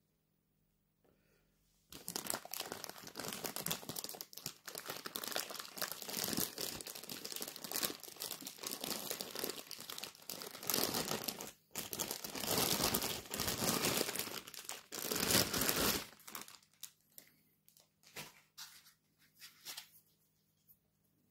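Clear plastic bag crinkling and rustling loudly as a microphone is pulled out of it, starting about two seconds in and stopping suddenly some fourteen seconds later. After that come a few scattered light handling clicks and rustles.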